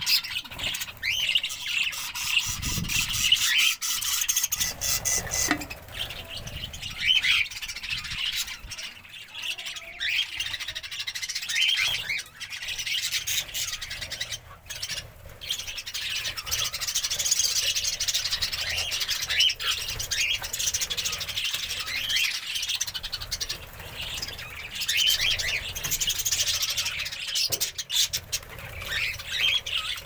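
Budgerigars chattering: a constant, busy mix of short chirps and squawks.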